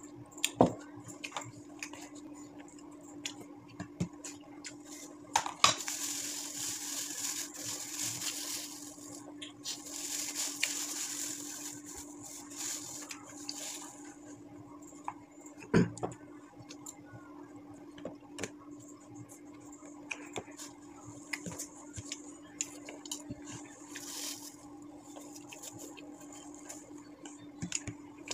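Eating and drinking at a table: scattered clinks and knocks of a ceramic mug and a spoon against dishes, the loudest about half a second in, around five and a half seconds and near sixteen seconds, with a few longer noisy stretches of sipping between them. A steady low hum runs underneath.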